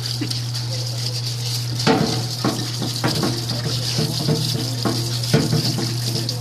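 Parts washer running: a steady motor or pump hum under a hissing spray of washing fluid. From about two seconds in come irregular knocks and clatter.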